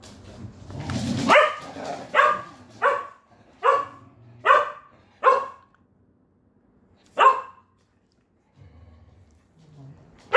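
A dog barking: a run of six sharp barks less than a second apart, then a single bark a couple of seconds later and another near the end.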